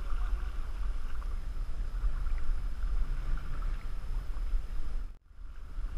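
Wind buffeting the microphone over water splashing and lapping against the hull of a canoe paddled through choppy lake water. The sound drops out briefly about five seconds in.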